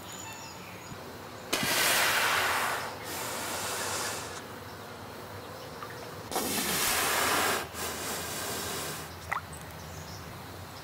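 Underwater recording of a manatee: two loud hissing rushes of noise, each about a second and a half long and a few seconds apart, over a steady underwater hiss. A faint short rising squeak, the kind of chirp manatees make, comes near the end.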